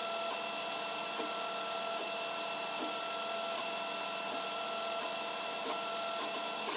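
FDM 3D printer running as it lays down the skirt at the start of a print: a steady whine of a few held tones from its stepper motors, with light ticks every second or so.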